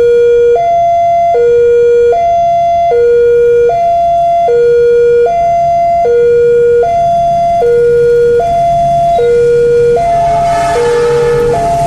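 Railway level-crossing warning siren sounding a steady two-note hi-lo alarm, each note held a little under a second. About ten seconds in, the rushing noise of an approaching train begins to rise under it.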